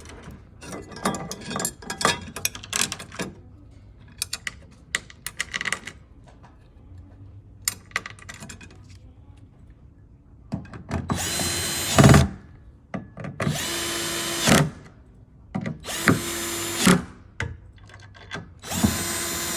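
A power drill driving screws into a bed frame, in four short runs of about a second each during the second half. Before that, scattered clicks and knocks.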